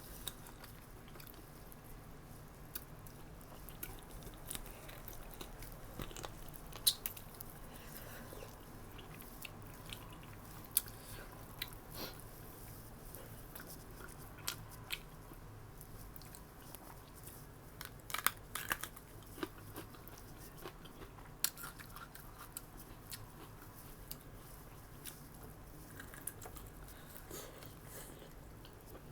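A person eating close to the microphone, chewing and biting, with scattered sharp clicks and smacks over a steady low hum.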